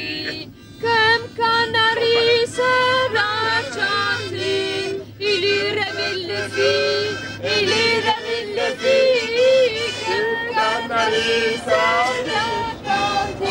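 A group of passengers singing a song together, with a harmonica playing along.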